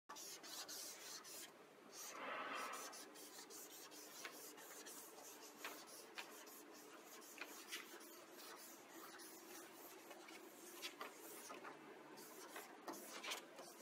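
Marker tip scratching and squeaking across a smooth panel while writing a graffiti tag. The sound is faint, with scattered small ticks and a louder squeak about two seconds in.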